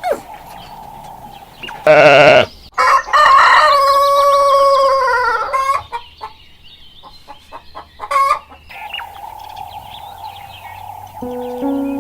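Rooster crowing: a short call about two seconds in, then one long crow of about three seconds that holds its pitch and drops at the end, and a brief call again near eight seconds.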